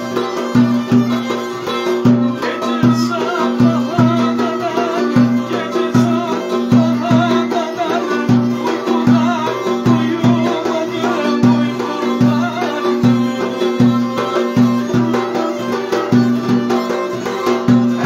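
Turkish folk dance tune (oyun havası) played on a davul bass drum, a violin and a banjo-like plucked string instrument. The drum keeps a steady beat of about two to three strokes a second under the violin melody.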